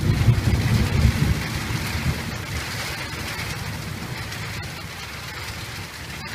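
Heavy thunderstorm rain pouring down steadily. A low rumble of thunder fades out over the first two seconds or so.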